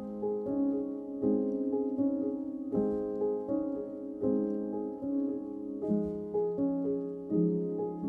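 Relaxing background music played on piano, its notes and chords changing at a steady pace.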